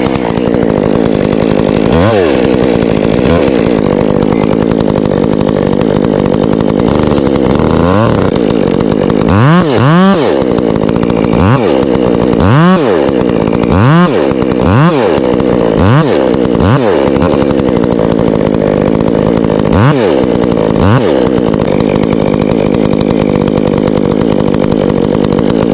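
Ported Stihl MS 201 two-stroke top-handle chainsaw running at high revs through a cut. The revs repeatedly dip and snap back up, most often in the middle stretch, as the throttle is blipped or the chain loads in the wood.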